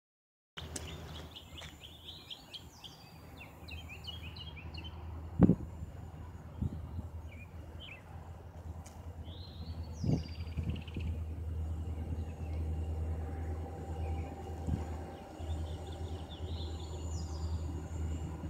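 Small birds chirping over a steady low rumble from a distant diesel locomotive that slowly grows louder. A sharp knock about five seconds in is the loudest sound, with a softer one around ten seconds.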